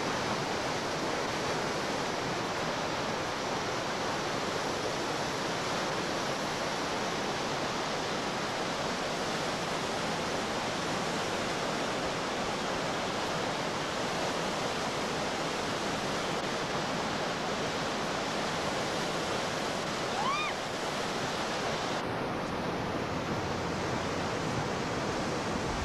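Whitewater rapids rushing steadily. About twenty seconds in, a brief rising whistle sounds over the water.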